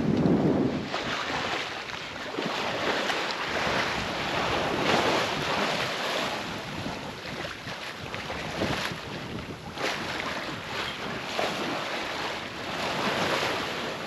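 Sea water rushing and splashing along the hull of a sailing yacht under way, coming in uneven surges. Wind buffets the microphone, most strongly near the start.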